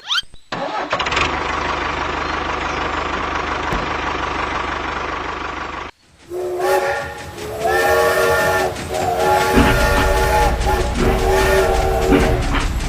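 A steady mechanical hum with hiss for about six seconds, then a sudden break. Then a series of loud multi-note horn blasts, each about a second long, over a low rumble.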